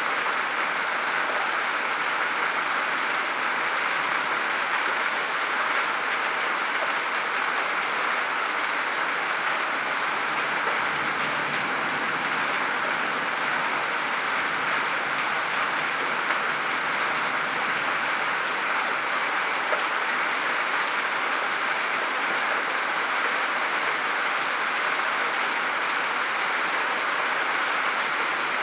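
Hailstorm: hail and heavy rain falling in a dense, steady roar without letup.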